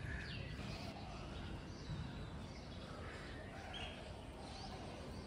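Faint outdoor background noise with a few scattered, faint bird chirps.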